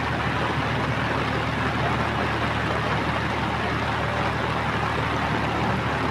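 Steady rushing noise of heavy rain and a flooded river, with the low, steady running of an off-road 4x4's engine underneath.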